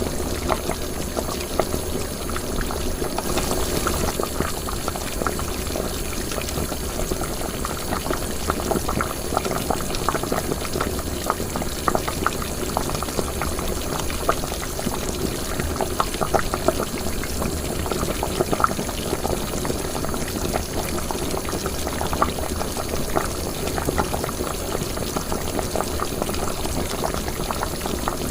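Liquid boiling in a cooking pot: steady bubbling made up of many small, rapid pops.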